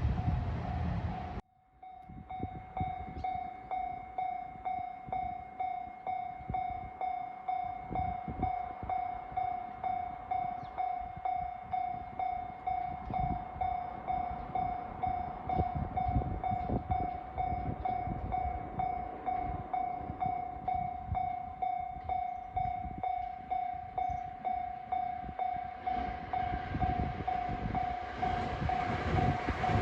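Japanese level-crossing warning bell ringing in a steady, even rhythm of one pitched electronic ding repeated over and over, signalling that a train is coming. Near the end the rising noise of an approaching 521-series electric train joins it. A low rumble in the first second and a half cuts off suddenly.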